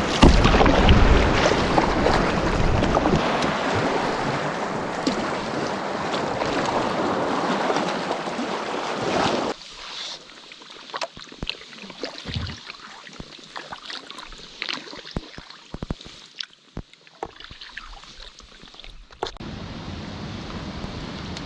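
Canoe paddled through rough Lake Superior swells: a loud, dense wash of waves and wind buffeting the microphone. About nine seconds in it cuts abruptly to a much quieter stretch with scattered small clicks and knocks, and near the end a steady wash of waves returns.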